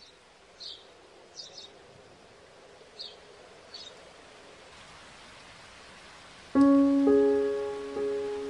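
Faint steady hiss with four short, high chirps in the first four seconds. About six and a half seconds in, a piano comes in loudly with a held chord, followed by two more notes.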